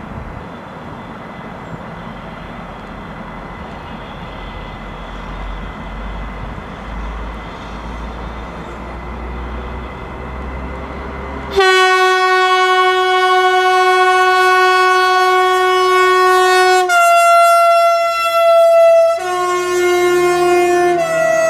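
Stadler diesel multiple unit pulling away, a steady diesel rumble that slowly grows louder. About halfway through, a loud, long horn blast sounds. It steps down slightly in pitch, breaks off briefly and sounds again.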